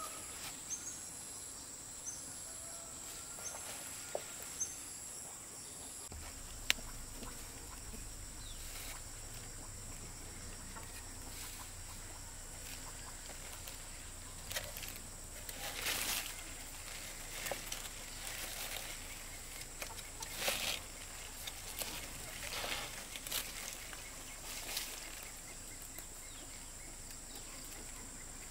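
Rural outdoor ambience. A bird chirps about once a second for the first few seconds, and a scatter of short rustling or scraping bursts comes in the second half.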